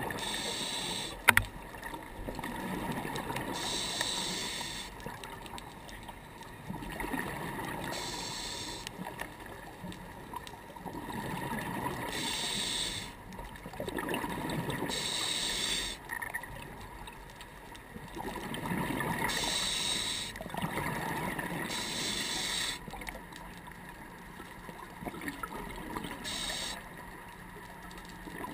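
Scuba diver breathing through a regulator underwater, heard through the camera housing: a hiss with each inhalation about every four seconds, each followed by a low burble of exhaled bubbles. A single sharp click about a second in.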